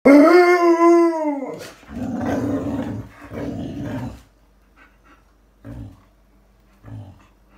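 Alaskan malamute vocalising: one loud, pitched howl-like call lasting about a second and a half, then two rough, low, growling grumbles, and two short, fainter grumbles near the end.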